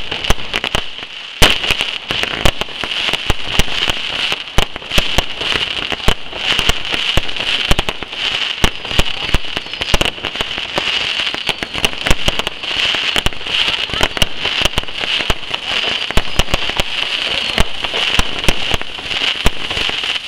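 Consumer firework batteries (cakes) going off in quick succession: a dense stream of sharp bangs and pops over a continuous crackling hiss. After a brief lull, a loud bang about a second and a half in sets the stream going again.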